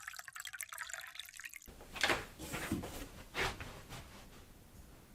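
Water running and splashing, as from a tap into a sink or cup: a few louder splashes about two seconds in, then fading to a faint trickle.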